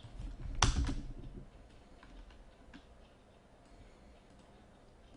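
A sharp knock with a dull thump about half a second in, then scattered faint clicks from computer typing and mouse clicks.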